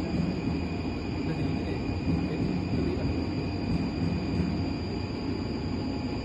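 Horizontal biomass grinder with a hammer rotor, running steadily: a dense, even low rumble with a steady high whine above it.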